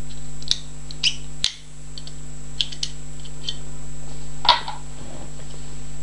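Scattered sharp metallic clicks and clinks, about six, from a brass lever padlock being handled and turned over in the hands, over a steady low hum.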